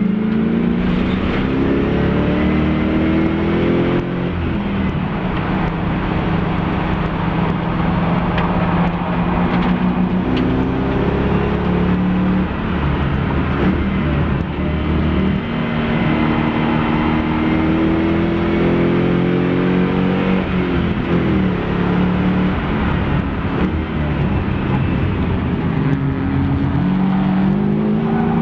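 Mopar-engined Nissan Fairlady Z race car's engine running hard on track, its pitch climbing and dropping back several times as it accelerates and slows.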